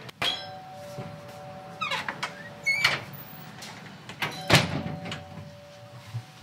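Glass-panelled shop entrance door being opened and let swing shut: a series of clicks and knocks from the handle and latch, the loudest knock about four and a half seconds in.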